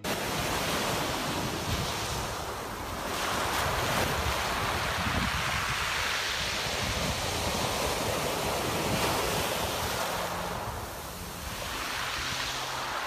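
Sea waves and wind: a steady rushing that comes in suddenly, then swells and eases in slow surges, strongest through the middle and softer near the end.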